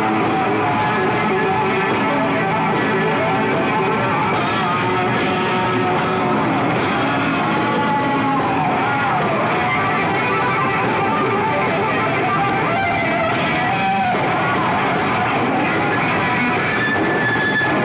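Heavy metal band playing live: an electric guitar lead with bending notes over drums and rhythm guitar.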